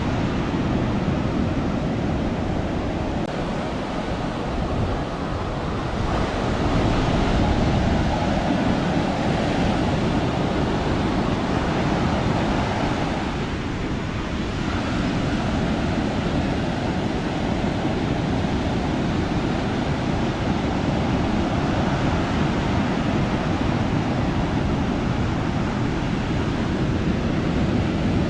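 Ocean surf breaking continuously, swelling louder about six seconds in and easing off again, with wind rumbling on the microphone.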